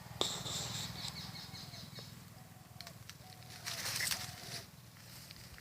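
Birds chirping: a quick twittering run of high notes, then several short whistled calls that each drop at the end, over a steady low hum, with a brief rustle about four seconds in.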